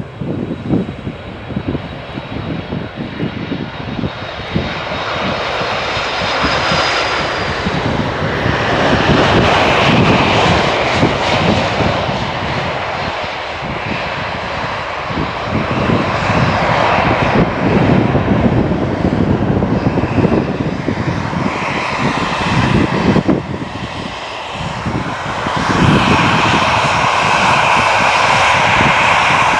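Boeing 747-400 freighter's four jet engines, a loud steady noise that swells about a third of the way in and again near the end.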